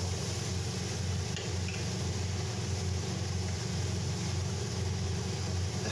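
Steady low mechanical hum of commercial kitchen equipment, with an even faint hiss of the chilli paste frying in the wok.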